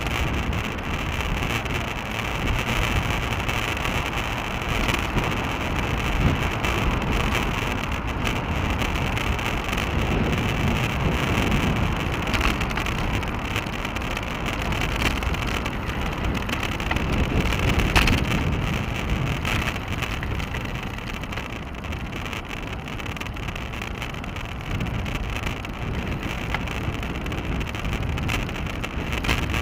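Steady wind rush and road rumble picked up by an action camera mounted on a moving bicycle, swelling and easing now and then, with a few sharp clicks, the clearest about two-thirds of the way through.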